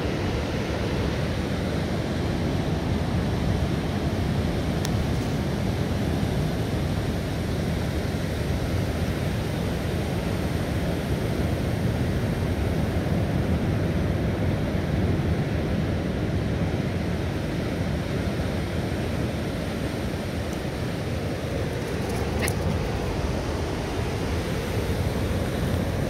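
Steady rushing noise of ocean surf breaking on a sandy beach, mixed with wind on the microphone.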